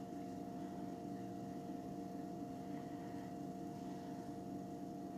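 Steady background hum holding a few fixed pitches over a faint hiss: room tone.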